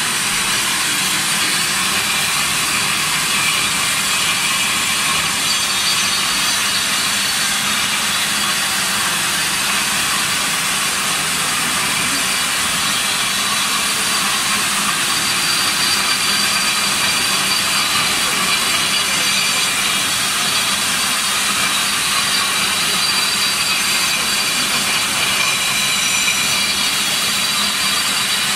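Single-phase 250 floor grinder running steadily as its grinding head works over a concrete floor: a continuous, unchanging grinding noise that is strongest in the high range.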